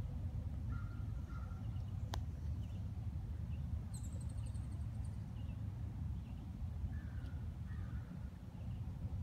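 Outdoor ambience: a steady low rumble, with faint bird calls over it. There are short caw-like calls about a second in and again near the end, and a brief high chirp about four seconds in.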